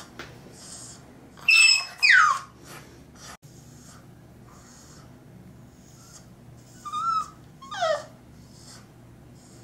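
A three-month-old French Bulldog puppy whining in high-pitched cries that slide downward in pitch: two loud ones about a second and a half in, and a shorter pair near the end, with soft snuffly breathing between them.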